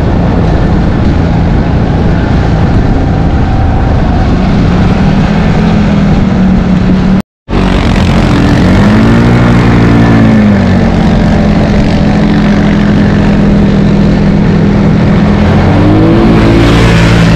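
ATV engine running while riding a dirt track, with rumble and road noise. The sound drops out for a moment about seven seconds in; soon after, the engine revs up and back down, runs steady, and rises again near the end.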